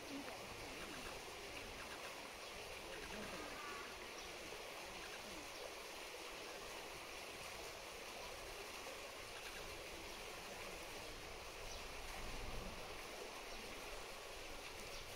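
Steady rush of running water in a zoo enclosure's pool.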